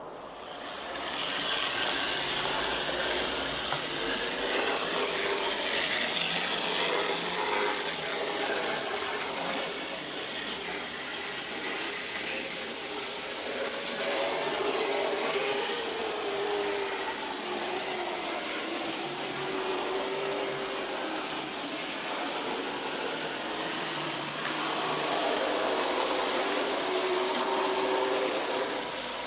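N gauge model locomotive running on its track, its small electric motor and gears whirring steadily. The motor's whine wavers up and down in pitch as the speed changes.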